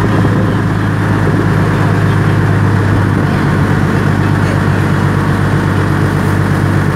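Passenger ferry's engine running steadily under way, heard from on board as a deep, even drone, with the wash of the river along the hull.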